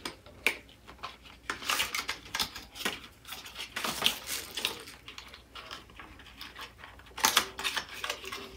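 Small plastic lash trays and cardboard lash boxes being handled, giving scattered light clicks and rustles, busiest in the middle and again near the end.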